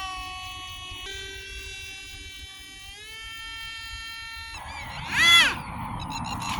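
Electric ducted fan of an RC F-35 model whining at part throttle, its pitch stepping up a little twice. The whine cuts off, then comes back as one brief loud throttle blip that rises and falls in pitch, followed by a steady hiss.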